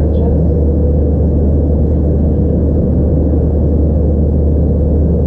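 Steady in-flight cabin noise of an Airbus A321-211: a low, even drone from its CFM56 turbofan engines mixed with the rush of air over the fuselage, heard inside the cabin from a window seat over the wing.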